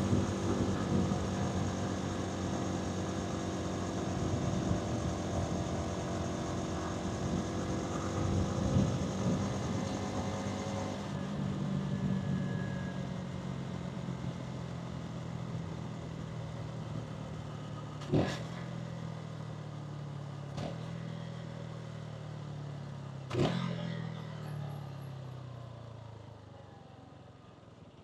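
Hansom Bike Venett 125cc motorcycle engine and exhaust running on the move, with wind and road noise. About eleven seconds in, the note drops to a lower, steadier pitch; over the last several seconds the engine slows and fades as the bike decelerates. Two sharp clicks come in the second half, about five seconds apart.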